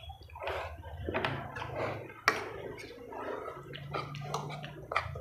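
Spaghetti being slurped and chewed, with many short wet mouth clicks and smacks.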